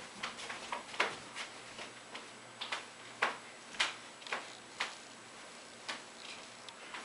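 Irregular taps and knocks, a few a second with no steady beat, from feet stepping and stomping on a hard floor while dancing.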